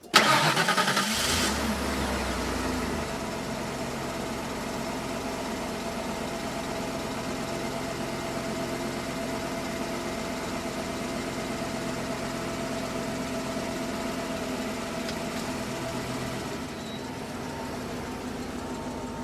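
Car engine starting: a loud burst as it catches, then settling within a couple of seconds into a steady idle.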